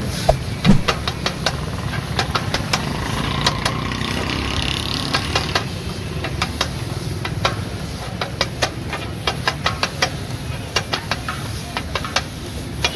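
Metal spatulas clanking on a tawa griddle in sharp, irregular strikes, over a steady low rumble.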